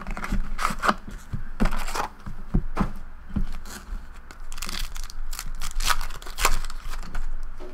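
Foil trading-card pack wrappers crinkling and tearing as the packs are handled and ripped open, in a run of irregular rustling bursts.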